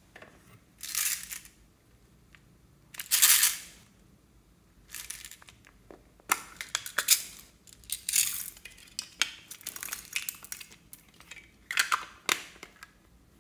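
Small plastic letter beads rattling inside a plastic bottle as it is shaken and tipped, with clusters of clicks as they spill out. There are two short rattles early on, then a longer run of quick clicks and rattles from about five seconds in.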